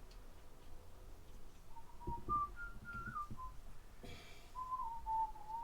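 A person whistling a few notes of a tune in two short phrases, with a few low knocks and a brief rustle of handling noise between them.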